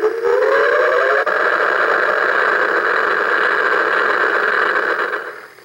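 The Star Trek Borg cube coin bank's small built-in speaker playing the Enterprise's going-to-warp sound effect: a rising whoosh over the first second, then a steady engine hum that fades away near the end.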